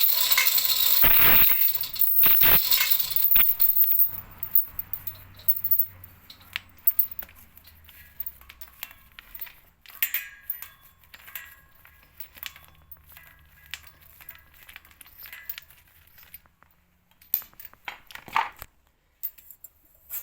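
A loud scraping, rustling noise for about the first four seconds with two sharp knocks, then scattered light metallic clicks and clinks of small hardware being handled.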